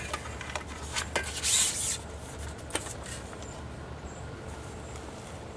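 Fishing pole being handled: a few light clicks and knocks and a short rustle in the first half, over a low steady background rumble.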